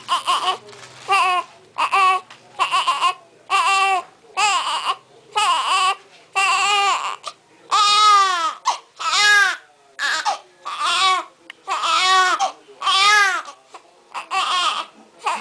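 Newborn baby crying hard in short, repeated wails, about one or two a second, each rising and falling in pitch.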